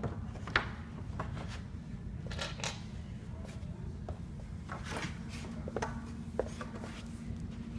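Scattered light clicks and knocks of trundle bed frame parts and screws being handled during assembly, with a sharp knock about half a second in and a few more spread through, over a steady low hum.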